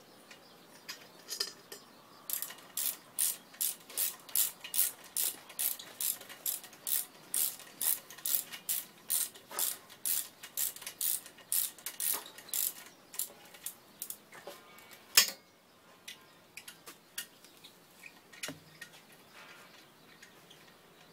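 Hand ratchet wrench clicking in quick, even strokes, about three a second, working a bolt loose on a small pump engine. The run of clicking stops, followed by one sharp, louder click and then a few scattered light clicks and taps.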